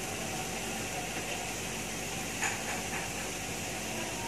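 Steady sizzling hiss of shredded chicken, onions and green chillies frying in a pan, with one light tap about halfway through.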